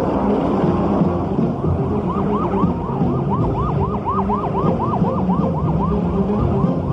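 Emergency-vehicle siren in a fast yelp, a rising-and-falling wail about four times a second, starting about two seconds in, over a steady low drone.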